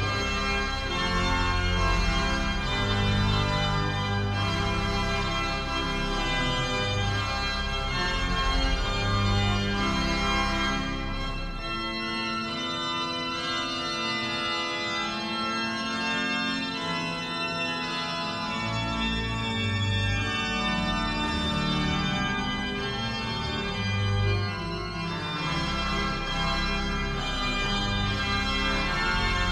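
Church pipe organ playing sustained, many-voiced chords over deep pedal bass notes. The bass drops out for several seconds midway and then comes back.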